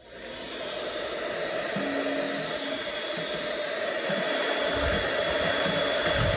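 Cordless mini vacuum switched on, its motor spinning up over the first second to a steady whirring hiss with a high whine as its nozzle sucks lint and dust from a sewing machine's bobbin area. Low rumbling joins after about four and a half seconds.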